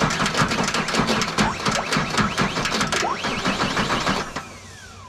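Case IH tractor's electric starter motor cranking the engine with a fast rattle when its relay is jumped, cutting off about four seconds in, its whine then falling away as it spins down. The starter turns over, which the owner takes to mean the starter is not at fault.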